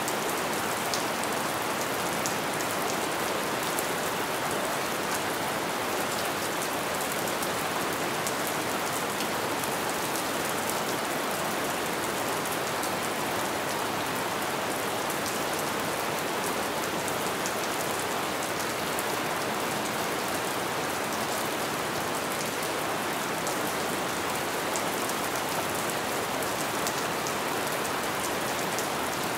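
Light rain falling steadily: an even hiss of rain with many fine drop ticks through it.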